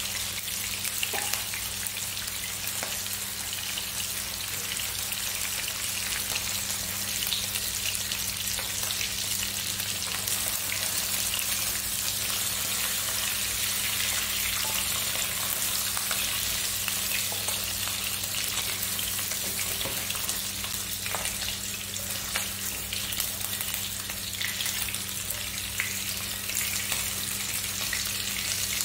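Tilapia pieces shallow-frying in hot oil in a nonstick wok: a steady sizzle with scattered small crackles and pops, with a spatula now and then moving the fish. A low steady hum lies underneath.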